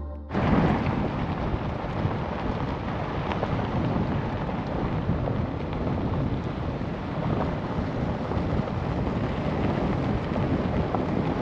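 Wind buffeting the microphone outdoors: a steady rushing noise with an uneven low rumble beneath it.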